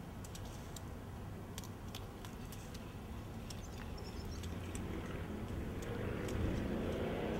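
Chickens pecking and tearing at wild greens: scattered sharp clicks and snips over a low steady rumble. From about halfway, a hum rising in pitch grows louder toward the end.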